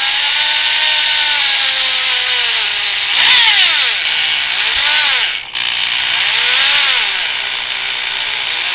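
Variable-speed drill driving an M5 × 0.8 tap into a drilled pilot hole in a metal flagpole tube, run slowly, its motor whine rising and falling in pitch as the trigger is eased on and off. It stops briefly about five and a half seconds in, then runs again.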